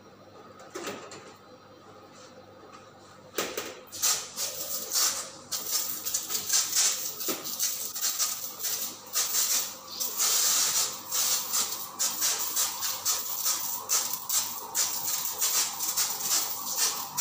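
Pest-control insecticide sprayer hissing in quick, uneven spurts, starting about three seconds in.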